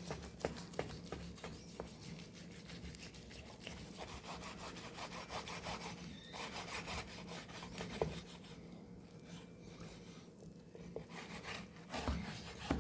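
Knife sawing back and forth through the grilled stuffed flank steak on a wooden cutting board: faint repeated scraping strokes with a few sharper taps.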